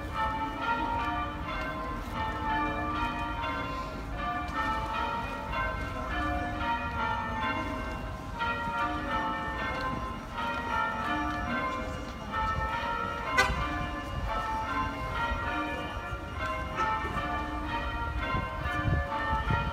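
Church bells ringing changes: a steady, even run of bell strikes at stepping pitches, with a low rumble underneath and one sharp click about two-thirds of the way through.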